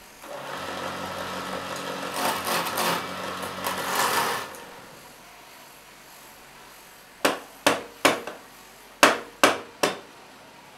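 Wood lathe running with a square timber blank spinning, for about four seconds before it stops. Then about seven sharp chops of a hatchet biting into the corners of the blank, in two quick runs.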